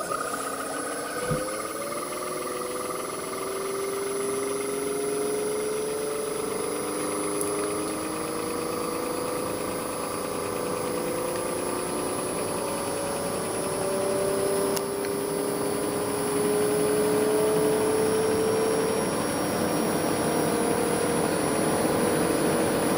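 LG dual inverter window air conditioner running, its inverter-driven dual-rotor rotary compressor soft-starting: several motor hum tones slowly rise in pitch and grow a little louder. A steady high whine sounds throughout, with a single click about a second in.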